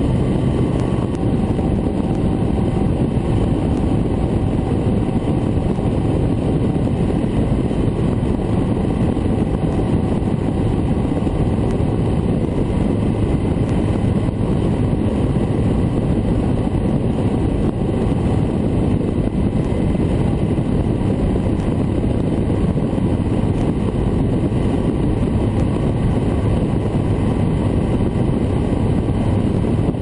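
Honda CB1300 Super Bol d'Or's inline-four engine running at a steady expressway cruise, heard from a camera mounted on the motorcycle. The engine note holds steady, with no gear changes or throttle swells.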